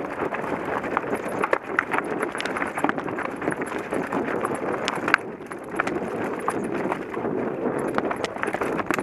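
Mountain bike rolling over a rock garden: continuous crunching of tyres on rock and gravel, with many sharp clicks and knocks as the bike rattles over the bumps.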